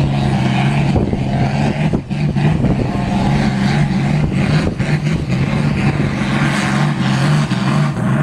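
New Holland M135 tractor's diesel engine running hard at a steady pitch under heavy load while pulling a weighted sled.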